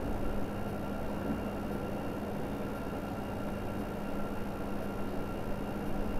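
Steady background room noise: a constant low hum under an even hiss, with no distinct sound standing out.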